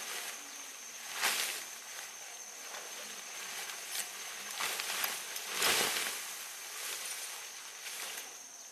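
Tent fabric rustling and swishing as it is unfolded and shaken out over grass, with two louder swishes, about a second in and again past the middle.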